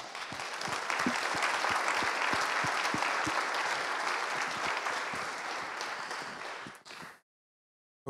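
Audience applauding, a dense even clatter of many hands that thins out after about six seconds and then cuts off abruptly.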